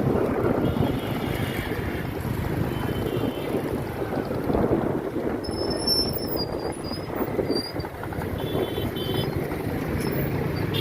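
Wind buffeting the microphone over the rumble of passing road traffic.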